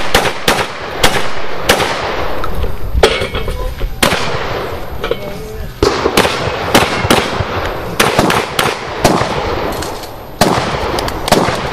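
A string of about twenty shotgun shots fired in rapid succession at steel targets, each a sharp report with a short echo. The shots come in quick runs broken by pauses of one to two seconds.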